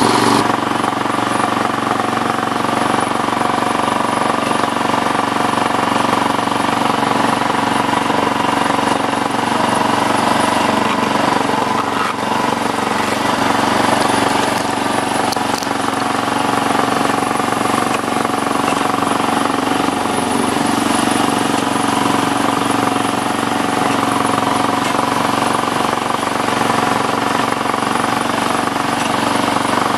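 7¼-inch gauge miniature railway train running along the track, heard from a carriage: the locomotive's small engine running steadily with the rattle of wheels on rails.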